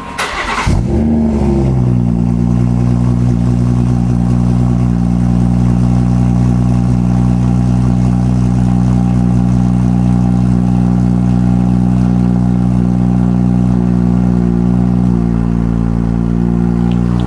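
2018 BMW 340i's 3.0-litre turbocharged inline-six (B58) cold-started: a brief crank, then the engine catches with a flare in revs and settles into a steady fast cold idle. The idle drops slightly in pitch near the end.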